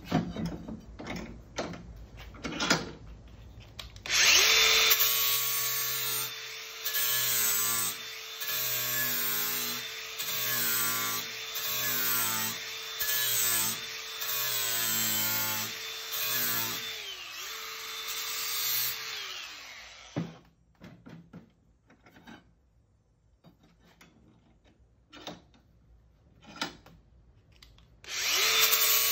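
DeWalt cordless angle grinder with a flap disc grinding the edge of a steel lawn mower blade held in a vise, its motor running at a steady pitch with the grinding surging in repeated passes about once a second. The grinder stops about two-thirds of the way through, a few knocks follow as the blade is handled, and it starts grinding again near the end. A few clicks come before the grinding begins.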